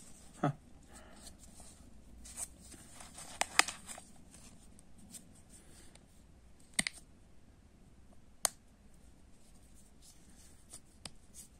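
Small hard-plastic toy parts of a toy marker pen clicking and tapping as they are handled and fitted together, a scattered handful of sharp clicks over faint handling noise.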